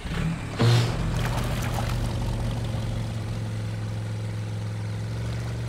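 Cartoon sound effect of the jeep's motor humming steadily as it drives into the river and runs on as a boat. A short splash of noise comes just under a second in.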